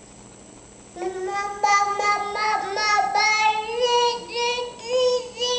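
A young child singing in a high, sing-song voice without clear words, holding steady notes that step up and down. It starts about a second in.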